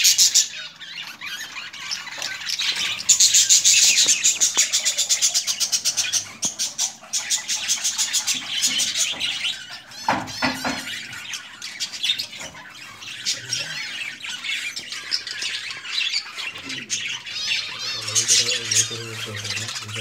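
Budgerigars chattering and chirping, with a loud stretch of rapid, rhythmic chirps a few seconds in.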